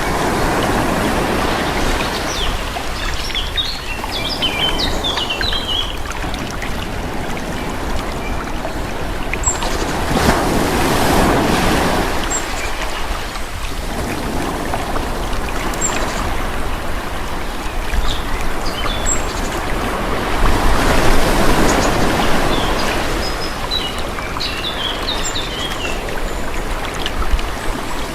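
Calm sea waves washing onto the shore, the surf swelling and falling back about every ten seconds. Birds chirp in short bursts twice.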